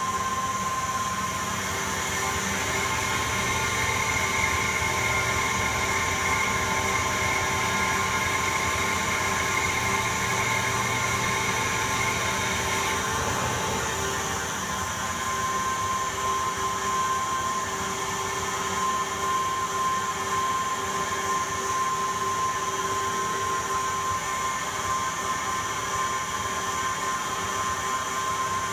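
Harrison 400T CNC lathe running an automatic parallel-turning pass on aluminium bar, the spindle turning at about 800 rpm: a steady machine whine with several constant tones. A higher note joins a few seconds in and drops out about halfway through.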